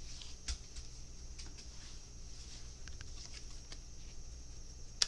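Tarot cards being handled: faint scattered light ticks and taps, with one sharper click near the end.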